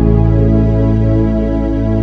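Background music of sustained, soft chords over a steady low bass note, with a slow melody moving above.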